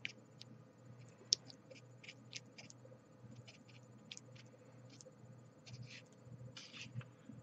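Faint clicks and light scraping of a white plastic pick and a mochi ball against a clear plastic candy-kit tray as the mochi is pressed into thick chocolate sauce. There is one sharper click a little over a second in and a short run of scraping near the end, over a steady low hum.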